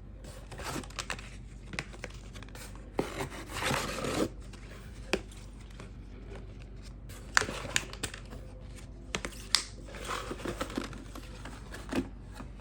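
Plastic packaging being handled and torn open: irregular crinkling and rustling, a longer stretch about three to four seconds in, with scattered sharp clicks and snaps.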